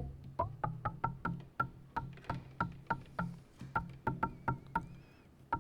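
Short pitched percussive clicks from a modular synth patch: noise gated by hand-tapped touch plates and passed through a resonant low-pass filter, struck about three to four times a second in an uneven rhythm over a steady low hum.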